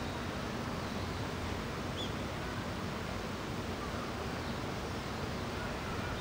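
Steady outdoor background noise, a rumbling hiss like wind or distant traffic, with a faint short high chirp about two seconds in.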